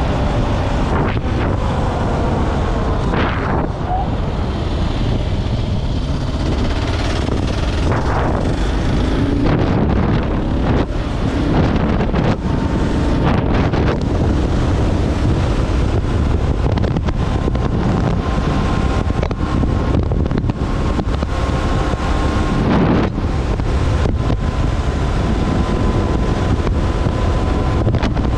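Kawasaki KLR650 single-cylinder motorcycle under way, heavy wind buffeting on the microphone over the engine note. The engine pitch rises and falls with the throttle early on, then holds steadier later.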